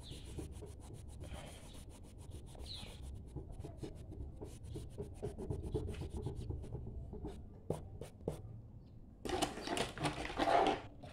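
Hand rubbing and sliding on a sheet of drawing paper, with scattered light clicks in the first few seconds. A louder rustle of handling comes near the end.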